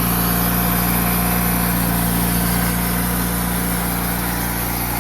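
The gas engine of a portable band sawmill running steadily at a constant pitch while the band blade cuts through a log.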